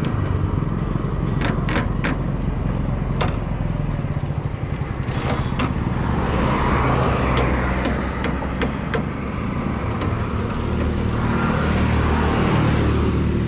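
Roadside traffic running by, with vehicles swelling past twice, and several sharp metallic clicks from hand work on a bicycle's rear brake, whose brake is not gripping and is being adjusted.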